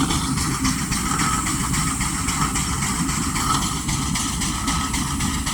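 A heavy vehicle engine running steadily at low speed.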